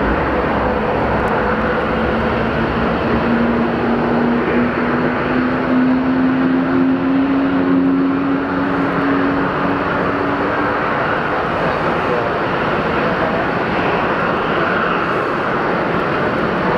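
Boeing 787's Rolls-Royce Trent 1000 jet engines running as the airliner taxis: a steady rush with a low hum that rises slightly in pitch over the first ten seconds or so, then fades.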